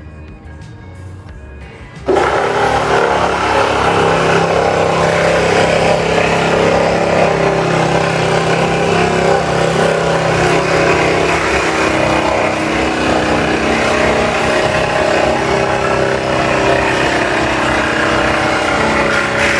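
Ridgid reciprocating saw cutting through the aluminum side wall of an enclosed trailer, starting abruptly about two seconds in and running steadily at full speed until just before the end.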